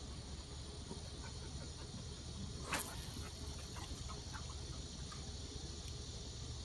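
A fishing rod being cast: one quick sharp swish about three seconds in. Faint ticks follow, over a steady outdoor background hiss and hum.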